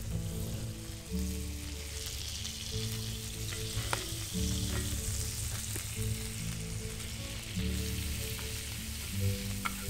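Butter sizzling as it melts in a hot cast-iron grill pan, stirred with a wooden spoon, over soft background music of low sustained notes.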